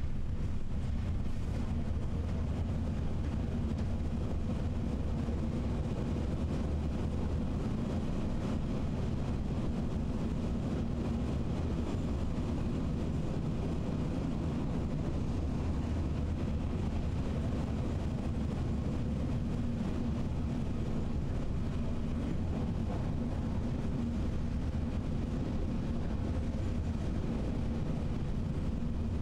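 Narrow-gauge train running steadily, a continuous low rumble with a faint steady hum and no sudden knocks or changes.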